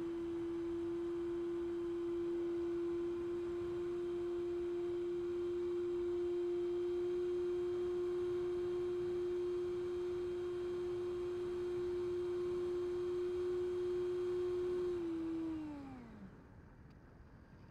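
80mm electric ducted fan of a Freewing Avanti model jet running at steady throttle as one steady tone, then spooling down about fifteen seconds in, its pitch falling away as the throttle is cut, leaving a faint hiss.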